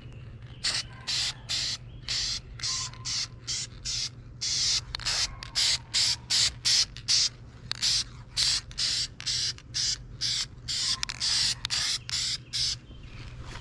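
Aerosol spray-paint can spraying in short hissing bursts, about two or three a second, with one somewhat longer spray about four and a half seconds in.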